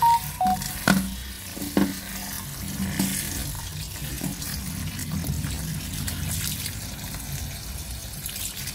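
Tap water running into a plastic colander of sliced snake gourd in a steel sink, with hands rubbing and turning the wet pieces as they are washed. There are a couple of knocks in the first two seconds, and a few short chime notes over the first half second.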